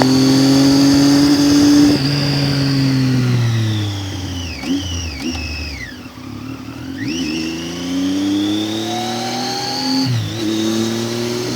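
Triumph Tiger 800's three-cylinder engine under way: it holds a steady pitch, drops at a gear change about two seconds in, then falls as the bike slows, with two quick dips and recoveries around the middle. It then climbs again as the bike accelerates, with another gear change near the end.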